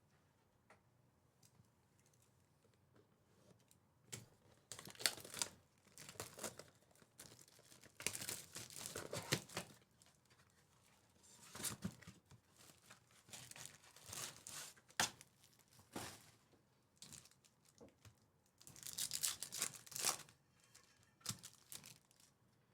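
Trading card pack wrappers being torn open and crinkled by hand: a few faint clicks at first, then from about four seconds in repeated bursts of tearing and crinkling, on and off.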